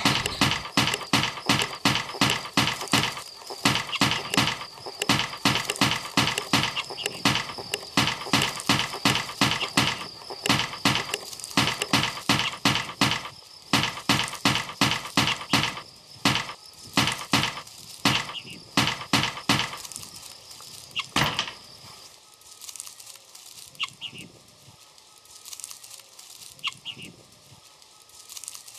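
Edited sound collage of short chopped loops: sharp knocks repeating about four times a second over a steady high tone, cutting out about 21 seconds in. After that come scattered chicken clucks.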